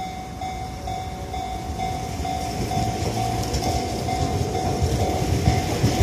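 Ohmi Railway 100 series electric train pulling out of the station, its wheel and motor rumble building as it gathers speed past the platform. A level-crossing warning bell rings about twice a second throughout.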